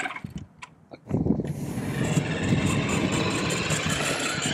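A toy-grade New Bright RC truck driving over asphalt: its small electric motor and gears run and its tyres rub the pavement. The sound starts loud about a second in, after a short near-quiet spell.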